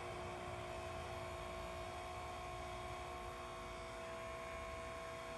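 A steady electrical hum made of a few held pitches over low room noise, unchanging throughout.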